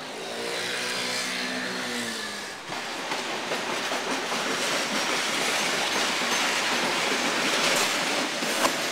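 A passenger train passing close by: a steady rush of noise with wheels clattering on the rails, setting in abruptly about three seconds in. Before it, a short pitched drone that rises and falls.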